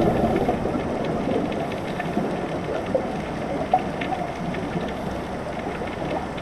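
Underwater ambience: a steady rushing hiss with a few faint scattered clicks.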